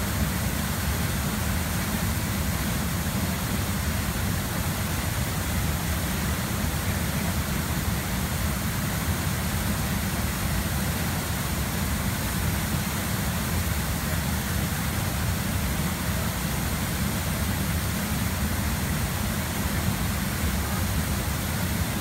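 A wide waterfall pouring over rock ledges into a plunge pool: a steady, unbroken rush of falling water, full and deep with a hiss on top.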